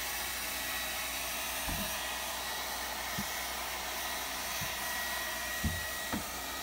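Hair dryer blowing steadily on a wet goat, with a thin whine that drops out near the end. A few soft, dull knocks sound over it.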